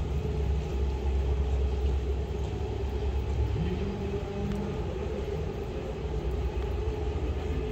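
City traffic rumbling steadily, deep and low, with a faint steady hum; it eases a little after about four seconds.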